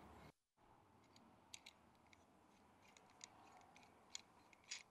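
Near silence, with faint, scattered light metallic clicks as a threaded nosepiece is screwed onto the end of a hand rivet-nut tool.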